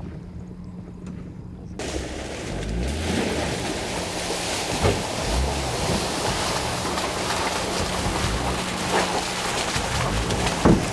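A 2024 Toyota Tacoma TRD Off-Road pickup with the i-FORCE MAX turbocharged four-cylinder hybrid powertrain driving slowly through muddy water-filled ruts: the engine runs low and steady under the splashing and squelching of the tyres in mud and water, which gets louder about two seconds in. There is a sharp knock near the end.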